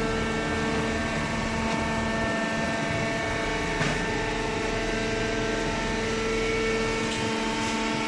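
Cardboard baler's hydraulic power unit running with a steady mechanical hum that holds several fixed tones.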